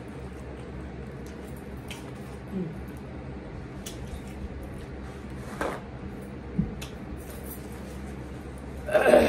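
Close-miked chewing and wet mouth sounds with faint clicks, over a steady low hum. A short, louder rustle near the end as a paper napkin is handled.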